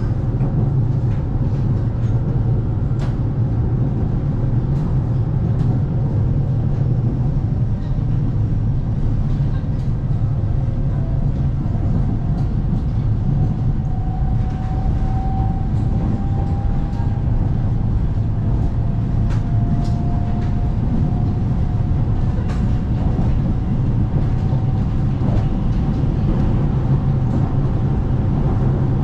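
Dalian Metro Line 12 train running steadily at speed between stations, heard from inside the car: a continuous low rumble of wheels on rail with scattered light clicks and a faint whine in the middle.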